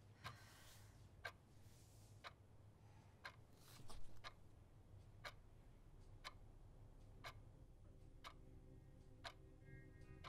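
Clock ticking quietly, about once a second. A few soft paper rustles come in the first few seconds, and music begins to swell in at the very end.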